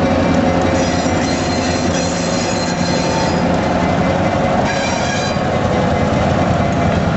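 EMD GP7u and GP9 diesel locomotives with 567-series engines running as they roll slowly past. Their wheels squeal high-pitched for a couple of seconds starting about a second in, and briefly again around five seconds.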